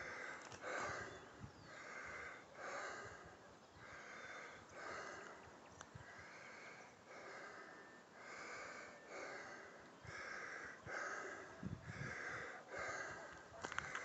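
A person breathing hard and rhythmically while climbing a steep trail, a breath in or out roughly every second.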